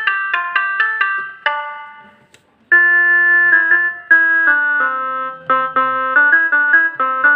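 Rockster RS41IN mini electronic keyboard played through its preset tones: a run of quick notes dies away about two seconds in, and after a short pause a melody starts on a different tone.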